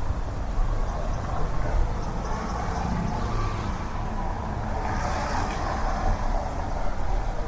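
Steady city traffic noise: a continuous rumble of passing cars, swelling slightly about five seconds in as a vehicle goes by.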